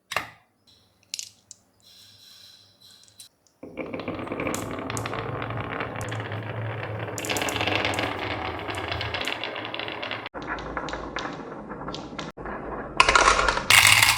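Marbles rolling and clattering down a wooden HABA marble run. A few sharp clicks come first, then a long continuous rattling roll with a low rumble, and a loud burst of clatter near the end.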